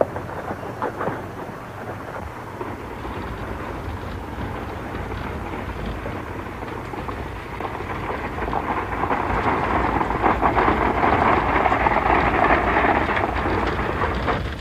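Galloping horses' hoofbeats clattering on a dirt road, joined by a horse-drawn stagecoach rumbling along, growing louder in the second half as it comes close.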